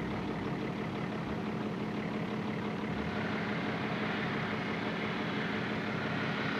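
Off-road vehicle's engine idling steadily, an even low hum that holds the same pitch throughout.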